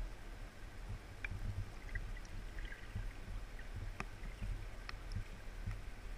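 Muffled underwater sound of a shallow creek: a steady low rumble of flowing water, with scattered faint ticks and a sharper click about four seconds in.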